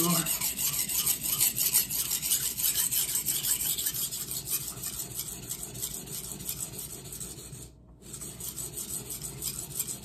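Steel knife blade scraping back and forth over a 400-grit vitrified diamond whetstone in quick regular strokes, coarse sharpening of a santoku edge. The strokes stop briefly just before eight seconds in, then carry on.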